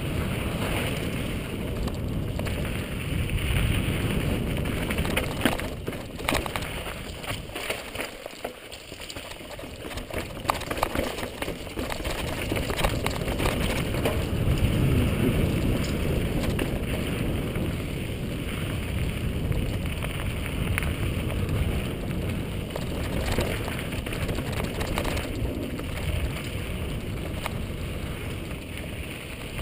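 Mountain bike riding fast down a dirt singletrack: tyres crunching over dirt and rock, and the bike rattling over rough ground, under heavy wind rumble on the microphone. A run of sharp clicks and knocks comes about six seconds in, with a brief lull just after.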